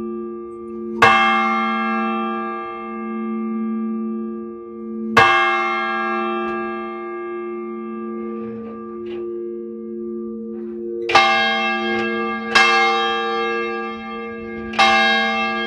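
Church bells ringing: five loud strikes at uneven intervals, each ringing on with a long fading decay, over a steady hum of lower bell tones.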